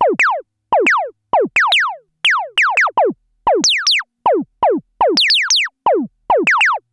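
Korg ARP Odyssey analogue synthesizer playing an uneven run of about sixteen short staccato notes. Each note sweeps quickly down in pitch, with silence between notes.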